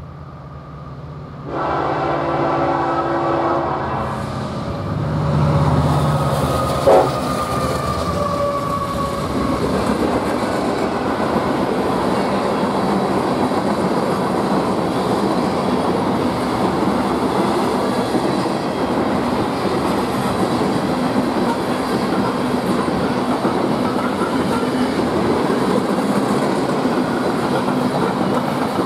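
A Nathan K5LLA five-chime air horn sounds one blast of about two and a half seconds as the train approaches. The diesel locomotives then rumble past, with a single sharp bang about seven seconds in. After that come the steady clickety-clack and rumble of loaded coal hoppers rolling by.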